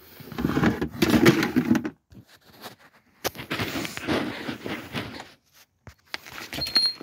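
Rustling and rubbing handling noise from the phone microphone as it is moved and gripped, in three rough bursts with short gaps, and a brief high squeak near the end.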